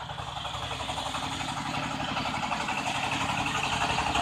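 Engine of a self-propelled power thresher running with an even, rapid pulse as it drives up, growing steadily louder as it approaches.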